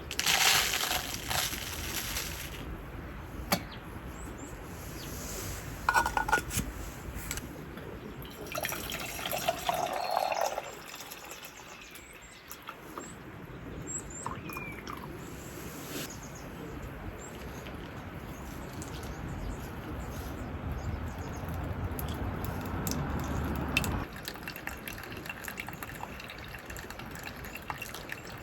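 Water being poured and trickling, with scattered clicks and knocks. A low, steady rush builds and then cuts off suddenly about three quarters of the way through.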